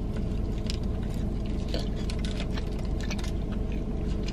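Close-up biting and chewing of a juicy cheeseburger: many small, irregular wet clicks and squishes of chewing. Under it runs a steady low hum in the car.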